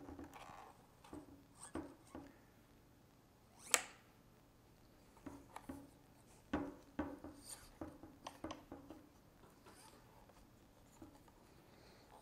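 Scattered light clicks and knocks of a DJI Matrice 600's spring-assisted landing gear being moved by hand, with one sharp click about four seconds in and a cluster of knocks a little later.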